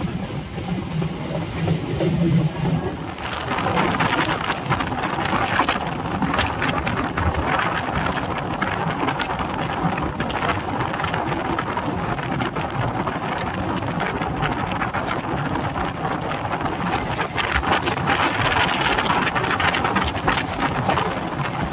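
Suburban electric multiple-unit (EMU) train running at speed, heard from an open doorway: a steady rumble and clatter of wheels on rails with rushing air, growing louder about three seconds in.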